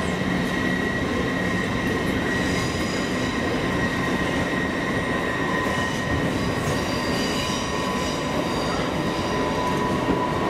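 Electric InterCity train with a Class 91 locomotive in the platform, a steady hum and whine over a low rumble, with faint high squeals of wheels coming and going.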